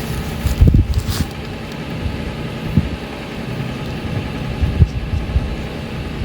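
A vehicle engine running at low speed while backing up a trailer to level it, a steady low rumble. There are a couple of brief knocks about a second in.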